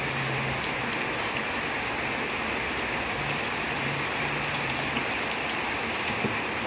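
Steady rain falling, an even hiss with faint scattered drop ticks.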